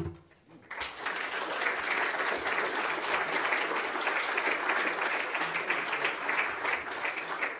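Audience applauding: a dense, steady patter of many hands clapping that starts under a second in and keeps up throughout.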